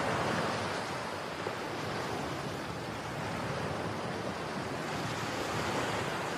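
Strong wind rushing steadily over a phone's microphone.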